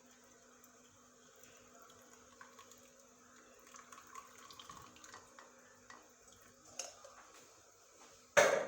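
Hot herbal infusion being strained from a small saucepan into a cup: a faint trickle and drip of liquid, with a short loud knock near the end.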